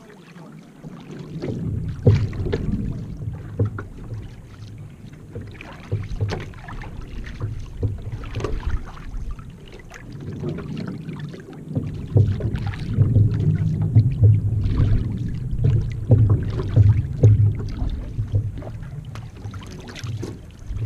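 One-person outrigger canoe being paddled on calm sea: water splashing and sloshing along the hull with the paddle strokes, with short knocks and a low rumble. It grows louder in the second half.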